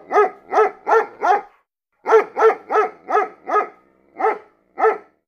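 A dog barking in two quick runs of short, high barks, about three a second, each bark rising and falling in pitch, with a brief pause about a second and a half in.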